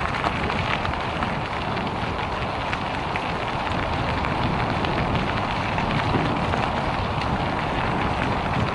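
Bicycle rolling along a gravel rail-trail: a steady rush of tyre and wind noise on the microphone, sprinkled with small crackles of grit under the tyres.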